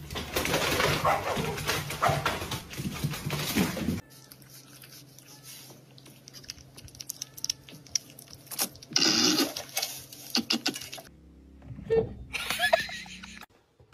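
A small dog jumping and scratching at a closed door, a loud dense scraping noise for about four seconds, then quieter scattered clicks and short sounds.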